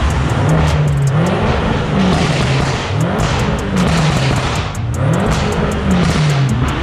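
Car engine revving in a brick underpass: the pitch climbs and drops back about three times.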